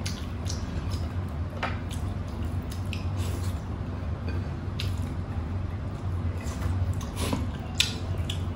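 Eating sounds: wet mouth smacks and chewing, with fingers squishing through soupy rice and beef as food is eaten by hand, in scattered short clicks. A steady low hum runs underneath.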